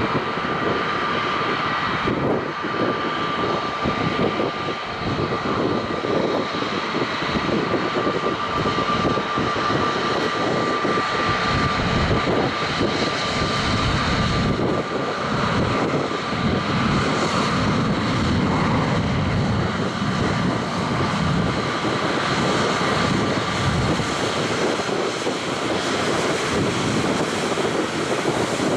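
Airbus A320neo airliner taxiing, its CFM LEAP-1A turbofans running at taxi power: a steady jet rush with a thin, even whine that fades out about two-thirds of the way through.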